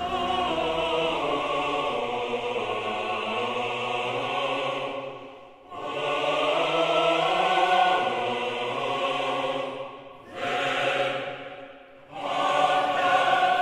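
Background music of a choir singing sustained chords, in four long phrases with short breaks between them.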